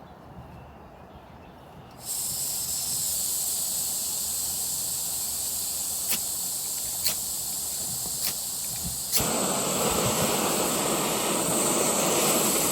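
BRS-3000T gas canister stove: the valve opens about two seconds in with a sudden steady hiss of escaping gas. Four sharp clicks follow as it is lit, and about nine seconds in the burner catches and burns with a louder, fuller rushing hiss.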